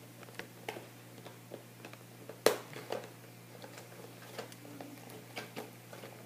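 Handling noise from a cardboard doll box with a clear plastic window: scattered light taps and crackles, with one sharp knock about two and a half seconds in, over a steady low hum.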